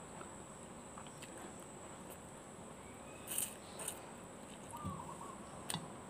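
A person eating instant fried noodles: quiet chewing, with a couple of short slurps of noodles about three and a half seconds in.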